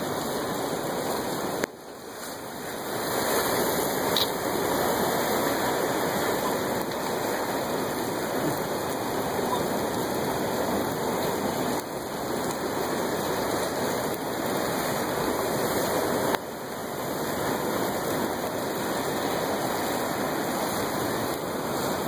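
Steady rush of ocean surf and churning sea water. The level drops suddenly twice, a little under two seconds in and about sixteen seconds in, and swells back up each time.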